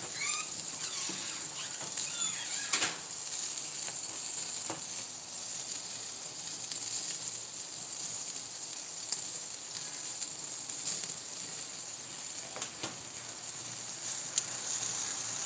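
Corn and sausages sizzling steadily on a charcoal grill over hot coals, with a few faint clicks.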